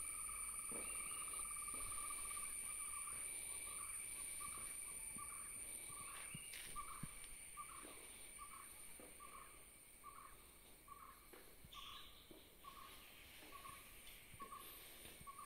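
Faint outdoor ambience: a steady high insect drone, with a mid-pitched animal call that trills continuously for about six seconds and then breaks into short notes repeated about twice a second.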